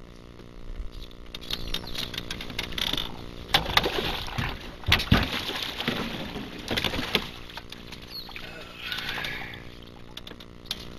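A hooked channel catfish splashing and thrashing at the water's surface as it is pulled in on a yo-yo line, hardest in the middle seconds. A steady low hum runs underneath.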